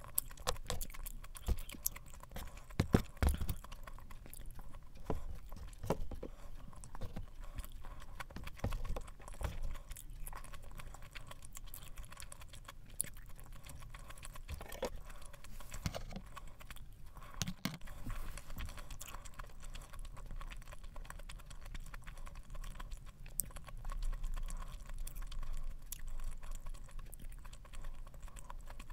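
Close-miked chewing of spicy stir-fried pork intestines (gopchang), with irregular soft mouth clicks throughout and a sharper click about three seconds in.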